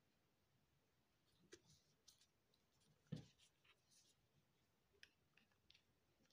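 Faint plastic clicks and scrapes of a Samsung SGH-Z400 mobile phone's battery being handled and fitted into the back of the phone, with one louder knock about three seconds in and a few more small clicks after it.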